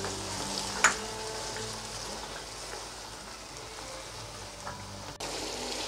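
Chicken keema and green peas sizzling quietly in a wok, with a single sharp clack about a second in.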